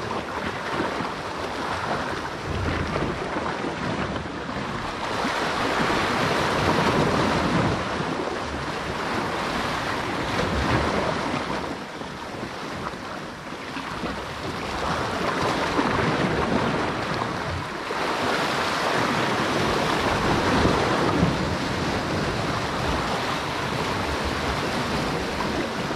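Sea surf washing on shoreline rocks, an even rush that swells and fades every few seconds, with wind buffeting the microphone.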